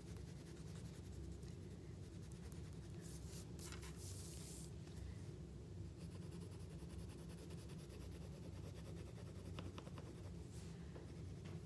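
Colored pencil scratching back and forth on paper as a drawing is shaded in, faint, over a steady low hum of room noise.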